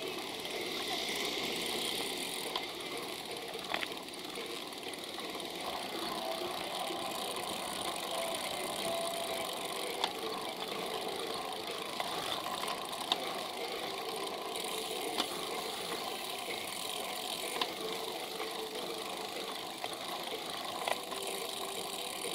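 Steady road and wind noise of a bicycle rolling along, heard from a camera mounted on the bike, with a few light clicks and rattles scattered through it.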